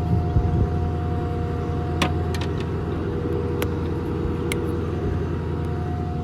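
Truck engine running steadily with a low rumble and a constant whine over it. A few sharp clicks sound about two, three and a half and four and a half seconds in.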